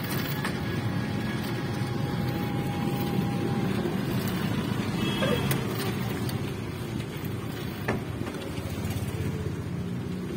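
Electric rickshaw riding along a road, a steady low rumble of tyres and rattling body, with one sharp knock about eight seconds in.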